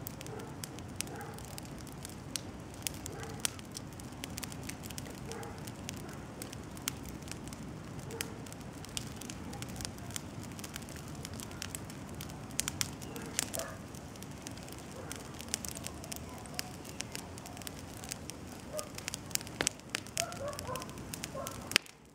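Bonfire of frost-killed citrus trees burning, with a steady low rush of flame and frequent sharp crackles and pops that grow denser in the second half; the sound stops abruptly just before the end.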